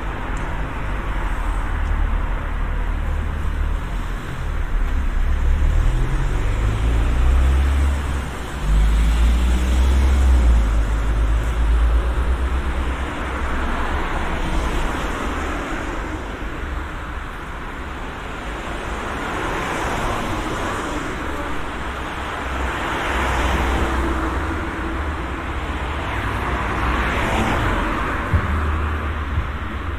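City street traffic: cars passing one after another, their tyre noise swelling and fading several times over a steady low rumble.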